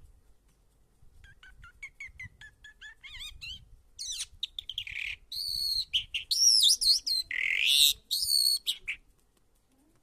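Caged crested lark singing: short chirps and whistles about a second in, building from about four seconds in into a loud, fast, varied warbling song that stops about nine seconds in. The bird has been trained on tunes.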